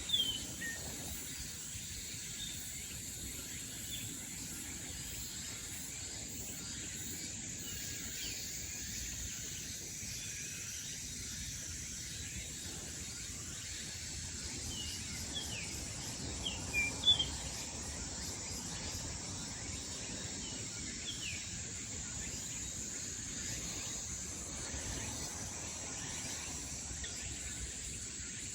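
Summer-morning forest ambience: a steady high-pitched insect drone with short bird chirps scattered through it, including a louder cluster of chirps about sixteen to seventeen seconds in.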